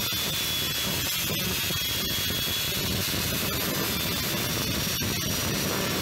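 Angle grinder with an abrasive disc grinding a metal axe head, giving a steady grinding hiss with a faint high whine from the spinning disc.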